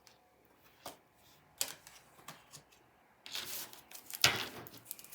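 Oracle cards being handled and shuffled: a few light clicks, then cards sliding against each other with a sharp snap about four seconds in.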